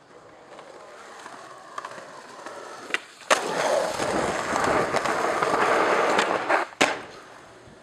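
Skateboard wheels rolling over concrete. About a third of the way in there is a sharp clack of the board, and the rolling turns loud and close for a few seconds. It ends with another sharp clack near the end.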